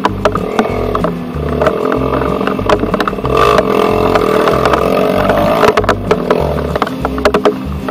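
Dirt bike engine revving hard under load, swelling loudest in the middle and easing near the end, as the rear wheel spins in mud on a climb. Background music with a steady bass line runs underneath.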